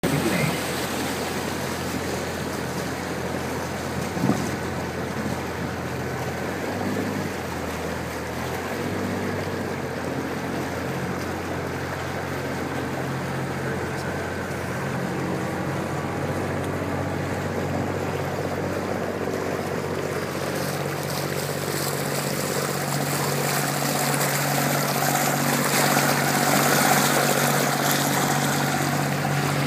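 Motor of an open canal tour boat running steadily, with water rushing and splashing along the hull. The engine note and the rush of water grow louder about two-thirds of the way in. A single sharp knock comes about four seconds in.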